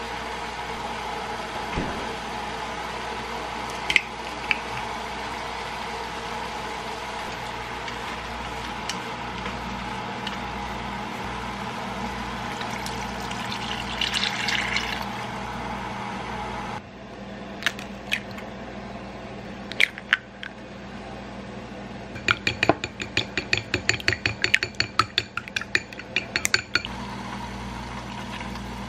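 Water poured into a hot stainless steel sauté pan of stir-fried chicken and onions about halfway through, over a steady background hum. Later a quick run of clicks and taps.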